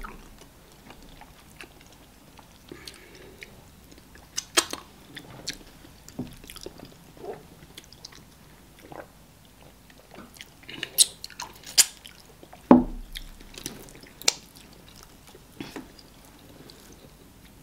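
Close-miked eating sounds of starch fufu and banga soup eaten by hand: wet chewing and lip smacks with sharp, irregular clicks. A dull thump comes about 13 seconds in.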